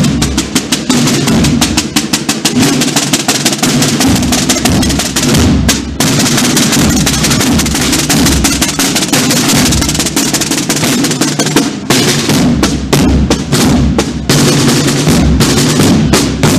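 Marching band snare drums and bass drum playing a rapid, dense marching beat with drum rolls, with short breaks about six and twelve seconds in.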